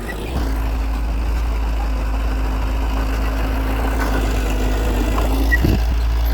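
Heavy diesel engine of an earthmoving machine running steadily with a deep low rumble. It gets louder about half a second in.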